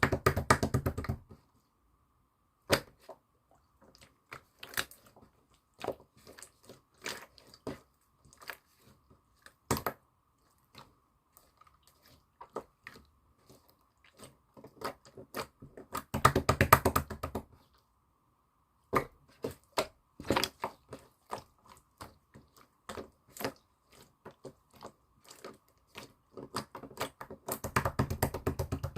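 Slime being worked by hand: scattered crackling clicks, with three bursts of rapid popping and crackling when it is pressed and folded, about a second in, in the middle and near the end.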